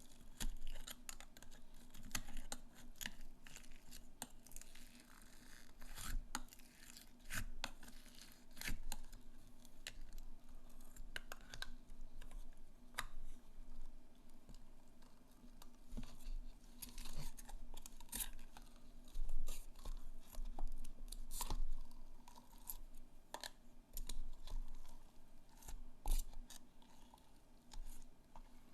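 Slime being handled close to the microphone: a steady run of irregular sharp clicks, crackles and pops.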